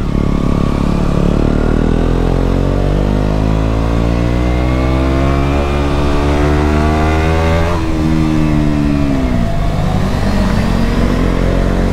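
KTM Duke 125's single-cylinder four-stroke engine, with an aftermarket Mivv GP Pro exhaust, pulling up through the revs as the bike accelerates. About eight seconds in the revs drop sharply at a gear change and keep falling for a moment before settling.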